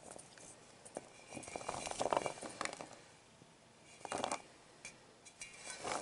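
Shelled nut pieces rattling and clinking against a stainless steel bowl as a hand stirs and scoops them, in two bursts: a longer one about a second in and a short one about four seconds in.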